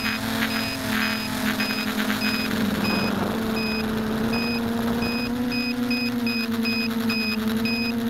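Mini foam tricopter's electric motors and propellers whirring steadily, heard from on board, the pitch shifting slightly, with a brief rush of noise about three seconds in. A short high beep repeats unevenly two to three times a second.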